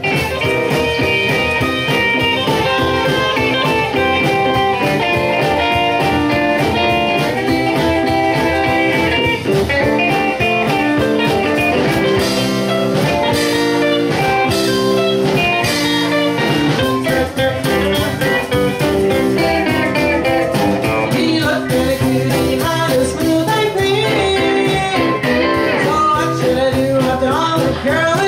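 Live blues and rock-and-roll band playing: electric guitars, upright double bass and drum kit, with a woman singing.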